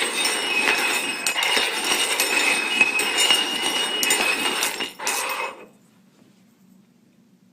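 Hard cups being shuffled around on a hard surface for a hide-and-find game, a continuous clinking clatter with some ringing, stopping sharply a little under six seconds in.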